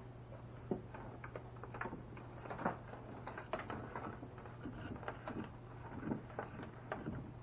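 Irregular light clicks, knocks and scrapes of hands handling wiring and fittings on a kayak, with a steady low hum underneath.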